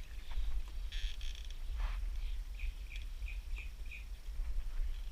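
Wind buffeting the microphone with a steady low rumble. There are a few scratchy rustles in the first two seconds, then a quick run of about five short, high chirps near the middle.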